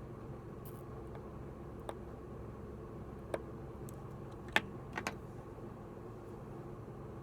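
A few sharp, isolated clicks of small hard parts or tools over a steady background hum, typical of something being taken apart by hand; the loudest click comes about four and a half seconds in.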